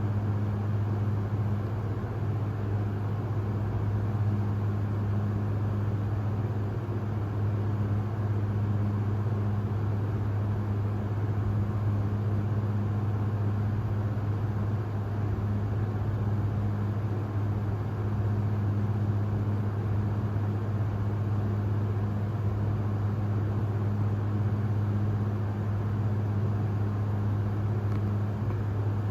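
Steady low machine hum, unchanging and with no rhythm of breathing or snoring in it.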